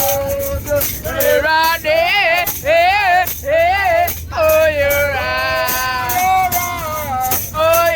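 A song playing: a sung melody with long held notes and a wavering vibrato over a steady shaker rhythm.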